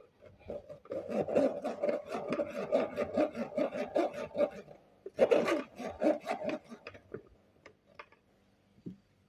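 A kitchen utensil worked back and forth on food by hand, making quick rasping strokes: a long run, a shorter run about five seconds in, then a few light clicks.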